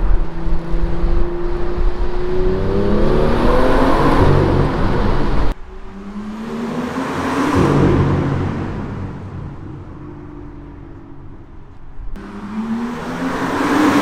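BMW M2 F87 with its N55 turbocharged straight-six and aftermarket modified exhaust, accelerating hard in three short back-to-back takes. In each the exhaust note climbs in pitch. In the middle take the car comes past, growing louder and then fading away.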